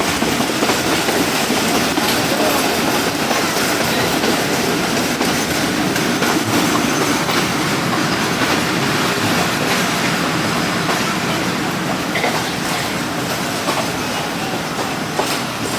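A moving train running along the track: a steady, loud rumble and rattle of the wheels and carriage, with faint clicks near the end.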